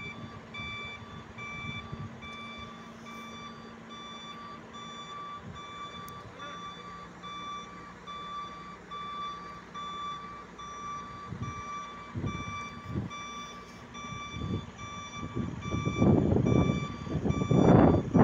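Mobile crane's motion warning beeper sounding a steady, evenly repeated high beep over a low engine hum while it lifts. From about twelve seconds in, gusts of wind buffet the microphone, growing loud near the end.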